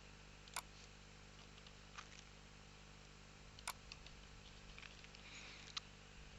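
Near silence with a few computer mouse clicks: two sharp clicks about half a second and three and a half seconds in, and a couple of fainter ticks between.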